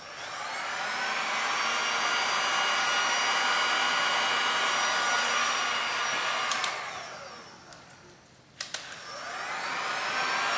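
Heat gun running: its fan motor spins up and blows steadily, is switched off about six and a half seconds in and winds down with falling pitch, then clicks back on about two seconds later and spins up again.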